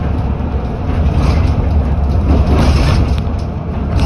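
Heavy low rumble of a moving Gautrain bus heard from inside the cabin, with road noise and a few knocks and rattles.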